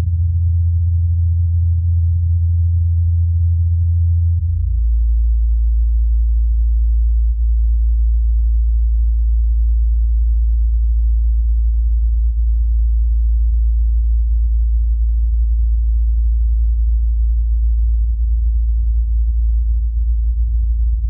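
Loud, steady low-pitched hum that drops suddenly to a deeper pitch about four and a half seconds in, then holds unchanged.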